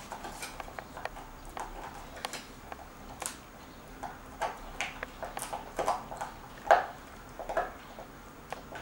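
Border Collie puppy gnawing a dried beef ear: irregular crunching clicks of teeth on the hard ear, the loudest a little under seven seconds in.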